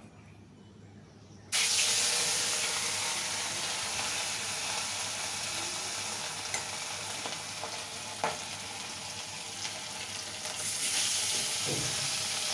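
Marinated rohu fish steaks sizzling as they fry in hot oil in a steel karahi. The steady sizzle starts suddenly about a second and a half in, after a quiet moment, and swells a little near the end, with a few light clicks.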